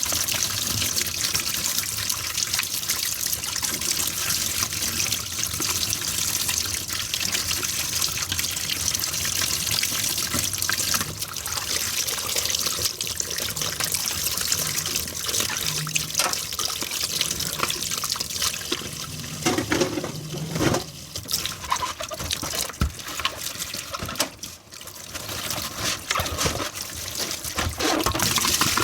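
Water running from a kitchen tap into a sink while dishes are washed under it, as a steady splashing trickle. A few sharp knocks of dishes sound about two-thirds of the way through, and the flow drops off briefly just after them before it resumes.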